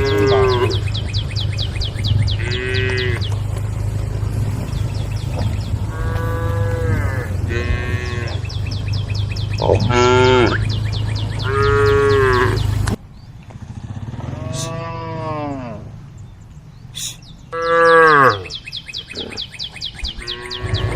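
Cattle mooing again and again, several cows calling to the herd with long, arching moos that sometimes overlap. A steady low hum runs under the calls and cuts off suddenly about two-thirds of the way through.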